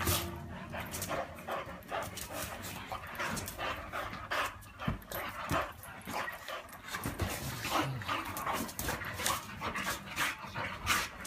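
A boxer and a Portuguese water dog play-wrestling, mouths open on each other, making a dense run of short, irregular breaths and mouth noises.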